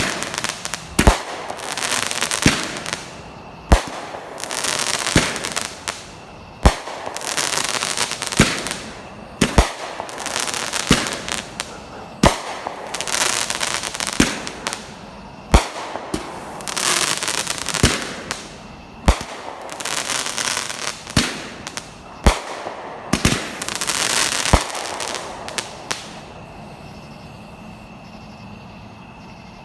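Fireworks going off in a rapid string: a sharp bang about every one and a half seconds, each followed by a crackling hiss. They stop near the end.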